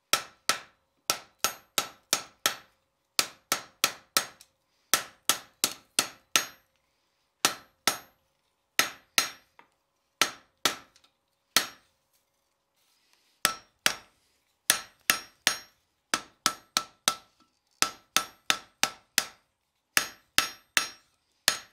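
Blacksmith's hand hammer striking a red-hot steel coat-hook blank on an anvil. The sharp, briefly ringing blows come in quick runs of a few at a time, with short pauses between runs and a longer pause about half way.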